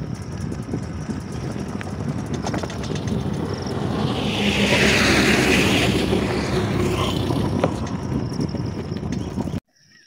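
Wind buffeting the microphone and road noise from riding a bicycle, swelling to a louder rush in the middle, then cutting off abruptly near the end.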